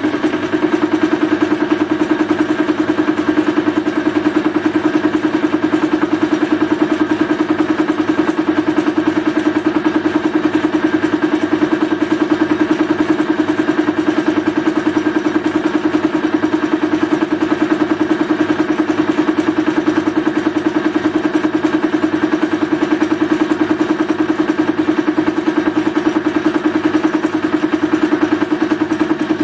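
Metal lathe running with a milling cutter in the chuck, cutting dry into a block fed in on the cross slide. It makes a steady hum with a fast, even pulsing from the cutter's teeth biting the work.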